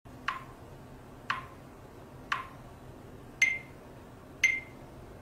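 Five short electronic blips, evenly spaced about once a second, each a quick chirp settling onto a brief tone; the last two are higher in pitch than the first three.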